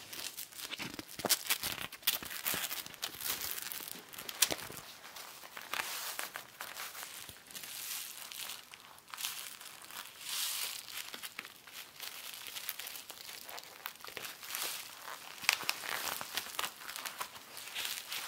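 Stiff leather rustling and crinkling close up as a velcro-backed leather pocket-flap patch is handled and pressed onto a leather shirt pocket, with irregular sharp crackles throughout.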